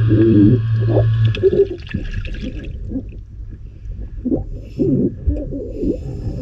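Muffled underwater sound of scuba divers breathing through their regulators, with irregular low gurgles of exhaled bubbles. A steady hum cuts off about a second and a half in.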